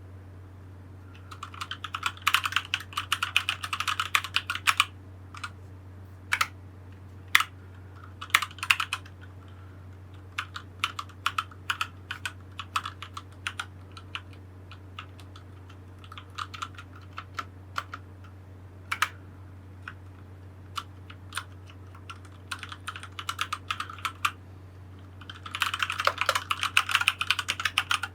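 Keystrokes on a Keychron C1 mechanical keyboard: a quick flurry of key presses near the start and again near the end, with scattered single presses in between.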